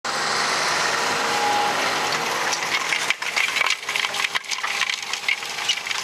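Fendt 828 tractor pulling a Kverneland six-furrow plough and Packomat packer through the soil: a steady running noise, with crackling and clattering setting in about halfway.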